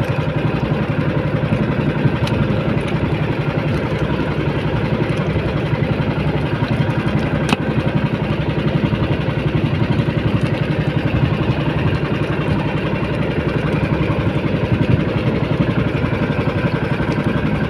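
Small engine of a motorised outrigger boat running steadily.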